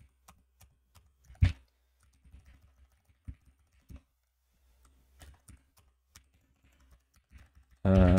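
Computer keyboard typing: scattered keystrokes with one louder clack about a second and a half in. A short hummed voice sound comes near the end.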